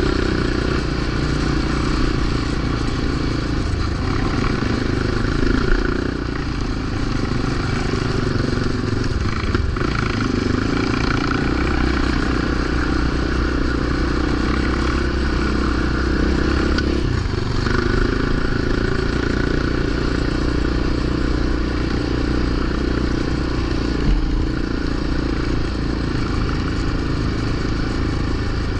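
Yamaha Raptor 700 quad's single-cylinder engine running steadily, its note shifting a few times, with rattling and noise over it.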